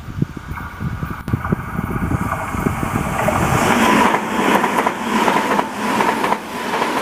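TOMIX N gauge model of a Tobu 100 series Spacia train running on its track: quick clicking and rumbling of the wheels over the rail joints, then the motor's hum and the rolling noise grow louder as the train passes close by.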